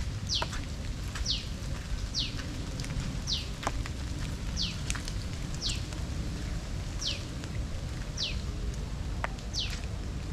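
A bird repeats a short, high, falling call about once a second over a steady low hiss of rain, with a few sharp drips ticking in.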